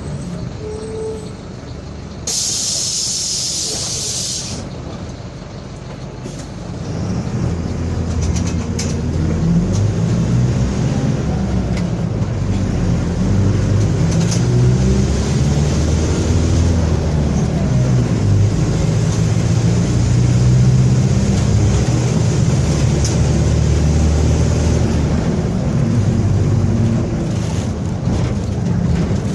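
Mercedes-Benz OF-1721 BlueTec 5 bus: a loud hiss of air from the brakes about two seconds in. From about six seconds the diesel engine pulls away and builds speed, getting louder, with the differential growling.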